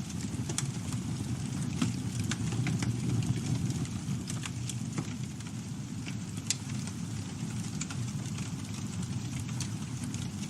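Campfire burning: a steady low rumble of flames with scattered sharp crackles and pops from the burning wood.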